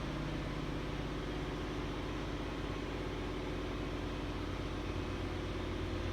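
Steady engine-like drone, an idling motor running at an even pitch with no change in speed.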